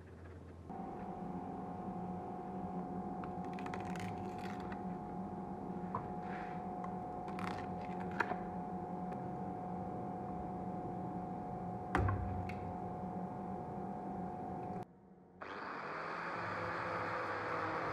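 A steady hum with occasional sharp clicks and knocks from handling. After a brief drop-out near the end, an angle grinder with a sanding disc runs against the cast epoxy resin knife handle, its pitch shifting slightly under load.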